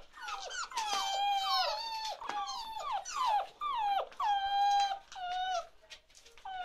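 Young chocolate Labrador puppies whining: a rapid string of high, falling cries, some overlapping and a few held for about half a second, easing off for a moment near the end.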